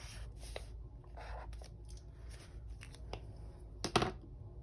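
Faint rustling and light taps of paper and planner sticker sheets being handled, with a sharper click about four seconds in.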